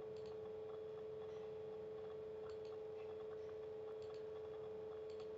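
A steady background hum, one even tone with fainter overtones, with a few faint clicks scattered through it.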